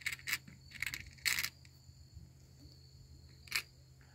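Small metal fishing hooks and the clear plastic compartment lids of a tackle box clicking and rattling as they are handled. There is a quick run of clicks in the first second and a half and one more click about three and a half seconds in.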